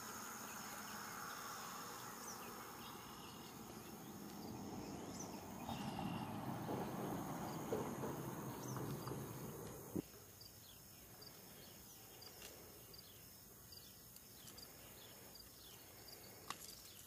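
Faint steady insect chirring, with short chirps over it. For the first ten seconds a louder rustling noise runs under it. A single sharp knock comes about ten seconds in.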